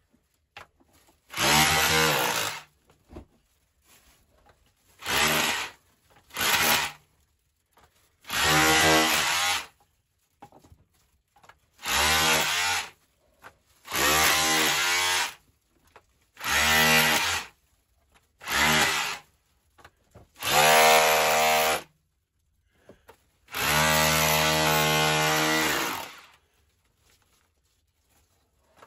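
Makita cordless hammer drill with a chisel bit hammering into clay and soft rock in short runs. About ten bursts of one to three seconds each, the longest near the end, with pauses between.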